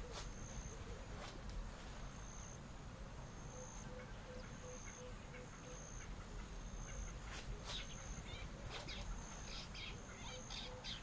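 Tropical forest ambience. A thin, high-pitched note repeats about once a second over a low hiss, a brief run of low, evenly spaced hoots comes in the middle, and a few sharp cracks follow near the end.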